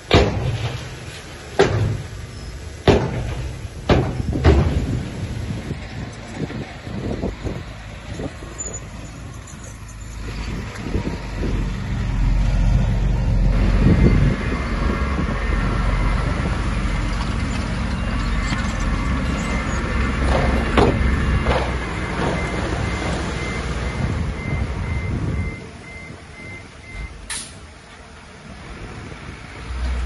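Heavy diesel earthmoving machinery at work: several sharp metallic clanks in the first few seconds, then a diesel engine working hard for about twelve seconds with a faint, evenly pulsing high beep, easing off again near the end.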